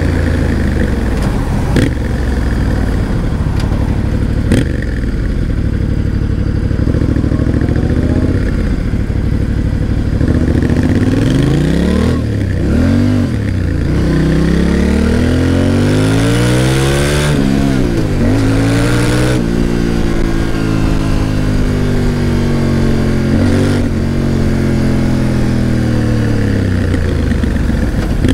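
Yamaha Ténéré 700's parallel-twin engine on the move: a steady low run for about ten seconds, then the revs climb and drop several times before falling away slowly over the last several seconds.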